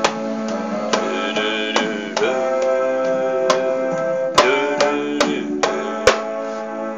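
Instrumental backing music with sustained guitar and keyboard chords, over which a hand-held frame drum is struck by hand about eight times at irregular intervals.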